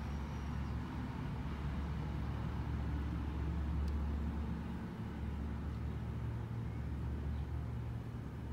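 Steady low background rumble, with a faint click about four seconds in.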